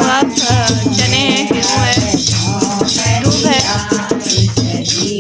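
Background music: a song with a wavering sung melody over repeated bass notes and a shaker keeping the rhythm.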